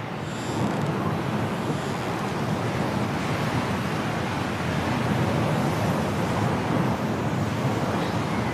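Strong snowstorm wind blowing steadily in a continuous rushing noise, growing a little louder about half a second in.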